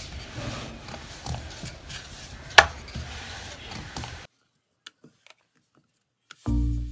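Wooden rolling pin rolling chapati dough on a rolling board: a steady rolling rumble with small clicks and one sharp knock about two and a half seconds in. The sound cuts off abruptly about four seconds in, and background music begins near the end.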